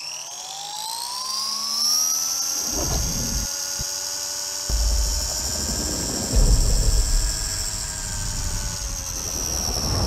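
Remote-control car's motor and drivetrain whining, rising in pitch over the first two seconds as the car speeds up, then holding steady. A low rumble joins about three seconds in.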